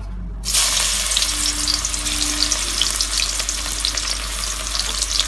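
Chopped onion hitting hot vegetable oil in a kadai and frying: a sizzle that starts suddenly about half a second in and keeps going steadily with fine crackles.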